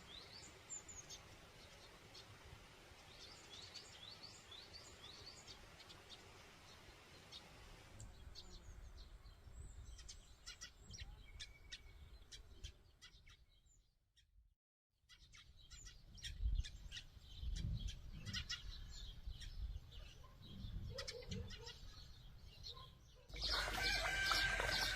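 Small birds chirping in quick high notes, followed by scattered clicks and knocks, then near the end a louder rooster crowing.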